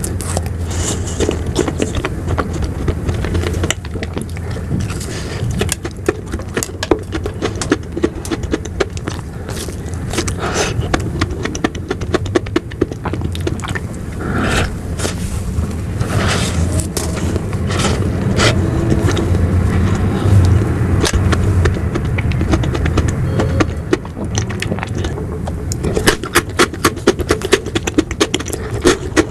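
Close-miked mouth sounds of eating ice cream: wet smacks and clicks with short slurps, over a steady low hum, with a denser run of clicks near the end.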